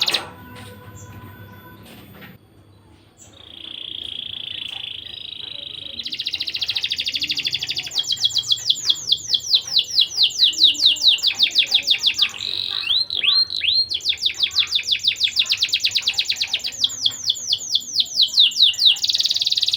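Canary singing after a brief lull: a long song that opens with a sustained rolling trill. It goes into long runs of fast, rapidly repeated falling notes, broken about two-thirds through by a few slower looping notes.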